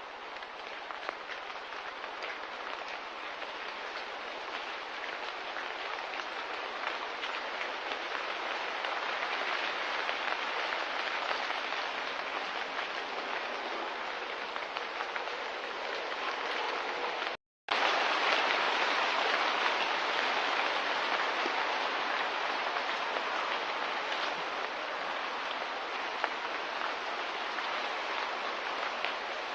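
Steady, even hiss of ambient noise, rain-like, that cuts out completely for a moment about seventeen seconds in and then resumes.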